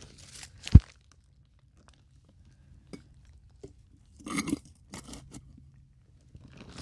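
Crunching and scraping of dry leaves and stones as a metal camping pot is pushed and wedged into a rocky mine-fire vent. There is a single sharp, low thump less than a second in, then more bursts of rustling and scraping about four to five seconds in.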